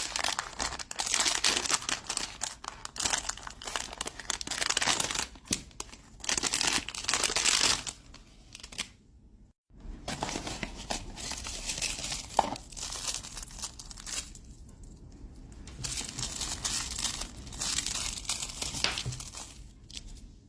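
Blind-box toy packaging being handled, crinkled and torn open by hand: a dense run of crinkling and crackling with tearing. The sound breaks off for a moment of silence about nine seconds in.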